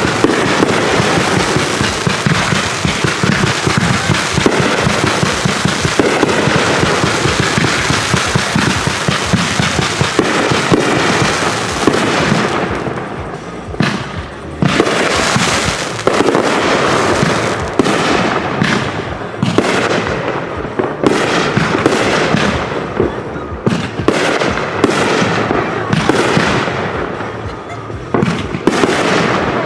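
Consumer fireworks going off in a dense barrage: a continuous wash of crackling bursts for about the first twelve seconds, then a rapid string of separate bangs and crackles with short lulls between them.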